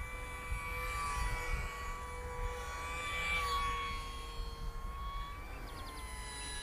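OMPHobby T720 micro RC plane's electric motor and propeller whining in flight, a steady high tone. Its pitch rises a little at the start and drops away about five and a half seconds in.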